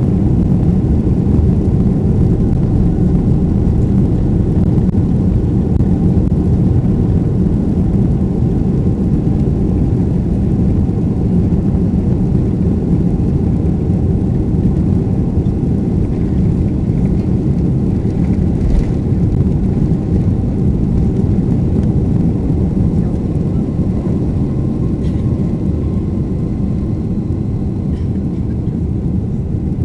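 Boeing 747-400 heard from inside the cabin during its takeoff roll: a loud, steady roar of the jet engines at takeoff thrust and the wheels rumbling on the runway, getting a little quieter near the end as the jet lifts off.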